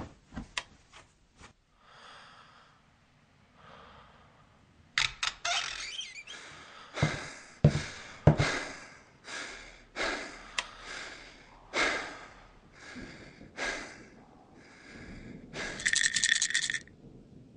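Heavy, panicked human breathing. It starts about five seconds in as a run of sharp gasps roughly a second apart and ends in a longer, strained gasp near the end.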